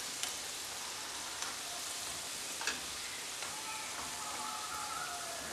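Pieces of cake dough deep-frying in hot oil in a pan, giving a steady sizzle, with a few light clicks as a slotted spoon lifts them out.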